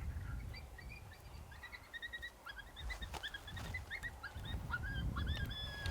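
Coyotes yipping and barking in the distance: a scatter of short, high calls, some sliding upward, with one longer held note near the end. A low wind rumble runs underneath.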